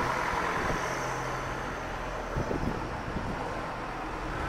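Boeing 737 airliner's jet engines heard passing overhead as a steady, even rush of engine noise.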